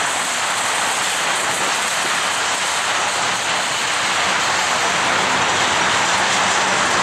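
Railroad tank cars of a long freight train rolling past: steady noise of steel wheels running on the rails.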